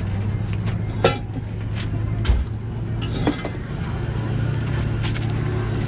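An engine running steadily with a low hum, with a few sharp metal clinks and knocks at irregular intervals.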